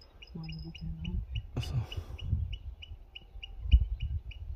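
Birds calling: a short high chirp repeats about three times a second, with a low two-part call about half a second in. A brief rustling burst comes near the middle, and a low thump near the end.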